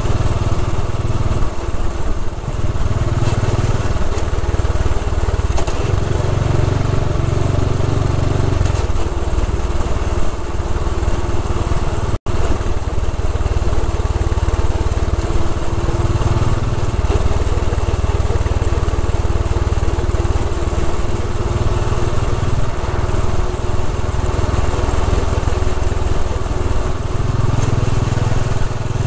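Royal Enfield Bullet 500 EFI's single-cylinder engine running steadily at cruising speed, with wind rushing over the onboard microphone. The low rumble swells and eases every few seconds, and the sound drops out for an instant about twelve seconds in.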